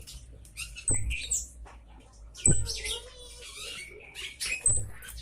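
Cabe jawa (scarlet-headed flowerpecker) giving sharp, high 'citt' calls, three of them about two seconds apart, each with a low thump. A quick buzzy trill follows the second call. This is the loud call used as a lure to make other birds answer.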